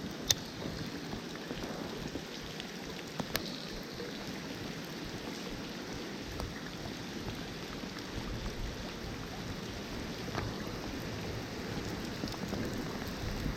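Steady hiss of flowing river water, with a few faint clicks.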